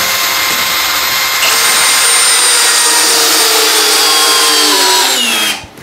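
Cordless hammer drills, a Milwaukee M18 Fuel Gen 4 and a Makita 40V XGT, driving 4.5-inch lag screws into a 4x4 through a socket: a steady motor whine with gear noise, getting louder about a second and a half in. Near the end the whine drops in pitch as the drills slow, then they stop.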